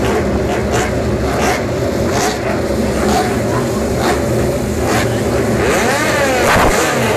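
A pack of MotoGP race motorcycles accelerating hard past at a race start, many engines revving at once; about six seconds in, engine notes sweep up and then down as bikes go by close.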